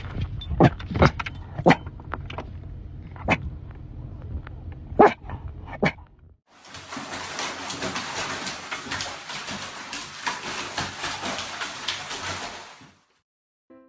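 A dog barking in short, sharp single barks, about a dozen over six seconds, over a low rumble. A steady rushing noise follows for about six seconds and then stops.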